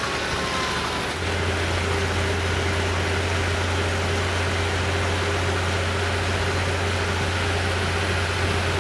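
The 1921 American LaFrance fire truck's 14-litre, 900-cubic-inch T-head engine running steadily under way, with wind and road noise. A low steady drone sets in about a second in, and a faint falling whine dies away in the first second.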